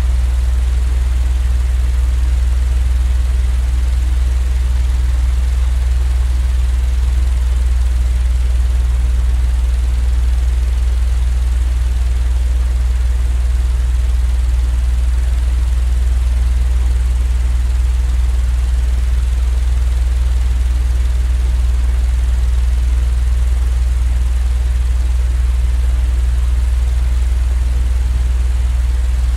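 Continuous low mechanical drone played as sleep-aid noise: a deep, steady hum with a faint hiss above it, unchanging throughout.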